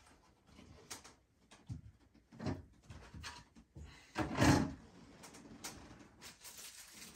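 Handling noise from a phone in a clear plastic case being held and turned in the hand: scattered soft clicks and rubs, with one louder bump about four and a half seconds in.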